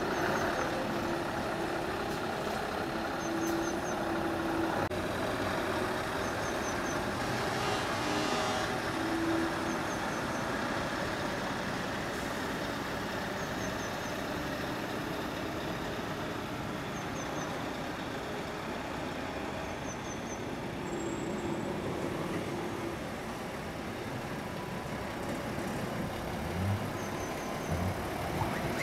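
Lorry diesel engines running and moving slowly, a steady traffic din with a short hiss about eight seconds in and a few low engine bumps near the end.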